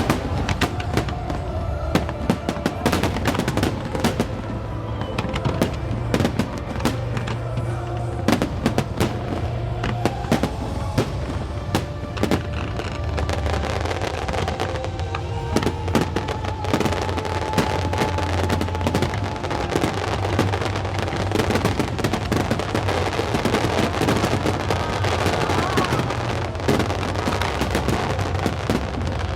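Fireworks display going off in a dense run of bangs and crackles, thicker in the second half, with music playing along.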